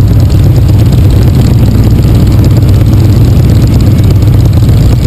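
Motorcycle engine running loud and steady, a deep low rumble.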